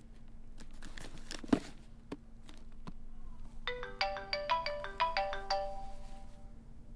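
Mobile phone ringtone: a short tune of quick electronic notes that starts about halfway through, signalling an incoming call. Before it come light knocks and one sharp thump as a boxed book set is handled and set back on the shelf.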